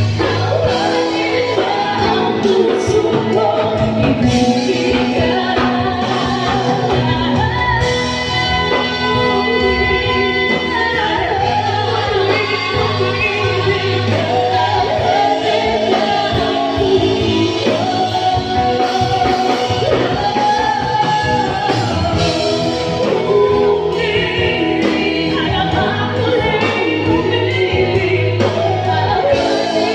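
Two women singing a duet into microphones over live band music with electric guitar and drums, loud and continuous through a PA system.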